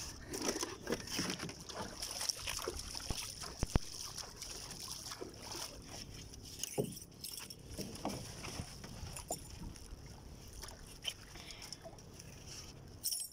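Scattered knocks, clicks and rustles of someone handling things in a small outrigger boat, with a plastic bag being handled, over a steady hiss of water around the boat.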